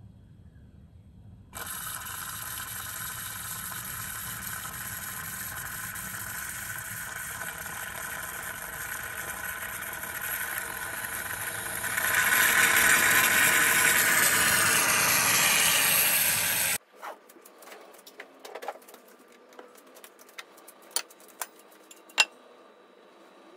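Bialetti Brikka moka pot brewing: a steady hiss of coffee and steam spurting up through its pressure valve, which turns louder and sharper about twelve seconds in as the foamy crema surges up, then cuts off suddenly. A few faint light clicks and taps follow.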